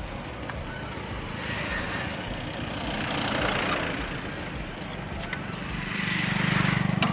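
Traffic noise swells up and fades away twice, as vehicles pass on the road. A low engine hum rises with the second pass near the end.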